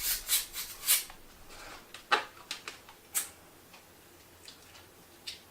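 Irregular short clicks and taps, several close together in the first second, louder ones about two and three seconds in, then only a few faint ticks.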